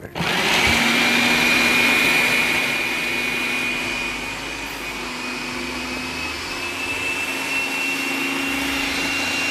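Electric food processor motor running, chopping onion, green chillies and fresh coriander: it starts abruptly and runs as a steady whine whose pitch creeps up slightly, a little louder for the first two or three seconds.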